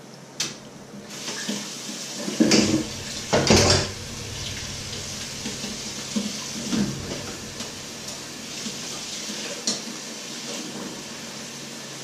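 Kitchen tap turned on about a second in and water running into a sink while pots are washed. Metal pots clatter loudly twice, at about two and a half and three and a half seconds, with lighter clinks of dishes and cutlery after.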